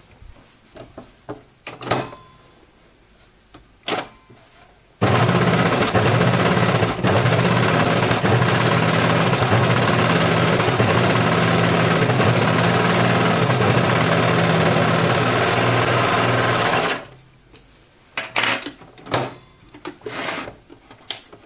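Baby Lock Imagine overlocker (serger) stitching a seam at a steady high speed for about twelve seconds, starting and stopping abruptly. A few clicks and fabric rustles come before and after it.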